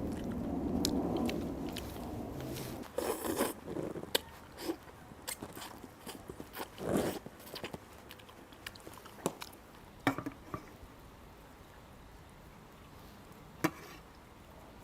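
People eating at a table: chewing and biting sounds, with scattered sharp clicks of tableware.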